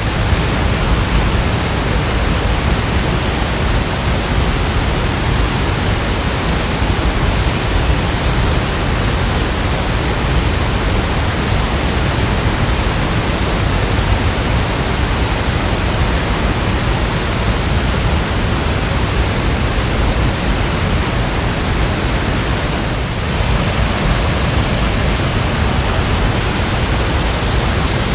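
Loud, steady rush of river water cascading over a check dam, with a brief dip about three-quarters of the way through.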